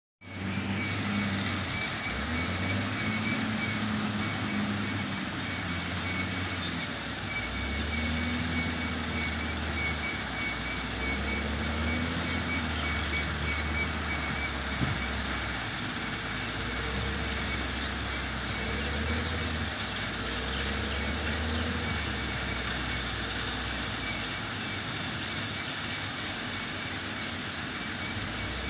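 Wheel loader's diesel engine working, revving up and dropping back again and again as it scoops and lifts. A steady high-pitched whine with faint ticking runs over it throughout.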